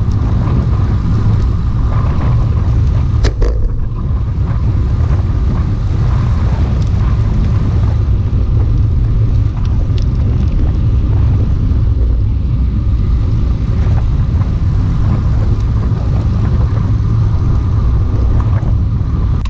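Wind rushing over the microphone while riding a road bicycle, a steady low rumble mixed with road noise.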